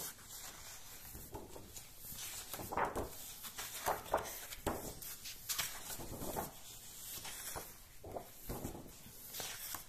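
Pages of a book being turned and handled: a series of irregular short paper swishes and rustles.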